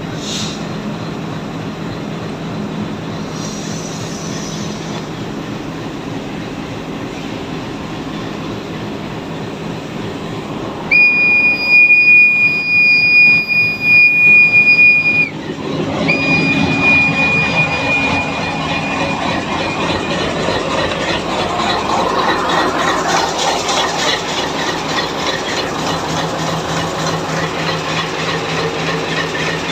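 ALCO locomotive diesel engine idling at about 400 rpm, a steady drone. About eleven seconds in, a loud high-pitched warning buzzer sounds steadily for about four seconds and cuts off, then sounds again more faintly for a few seconds.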